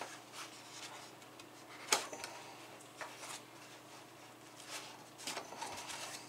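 Hands rummaging among accessories in the foam-lined compartments of a hard plastic carrying case: scattered rustles and light clicks, with one sharp click about two seconds in.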